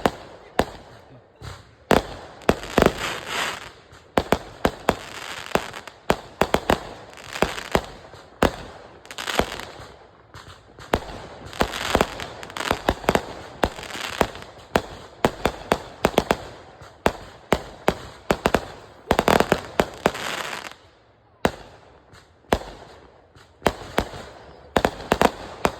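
Consumer firework cakes going off: a fast, uneven string of sharp bangs, with crackling between the reports and a brief lull near the end.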